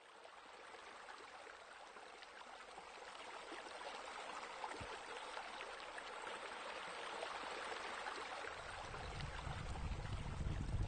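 Steady splashing of running water that fades in from silence and slowly grows louder. A low rumble joins near the end.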